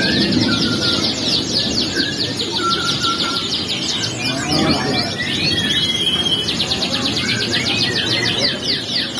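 Caged canaries singing in fast, dense trills of quick downward-sweeping notes, with a brief break about six seconds in.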